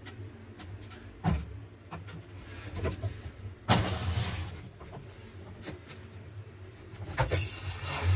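Hands handling brass ball valves on PEX water lines: scattered knocks and clicks, the loudest a sharp knock a little before four seconds in with a short hiss after it, over a faint low hum.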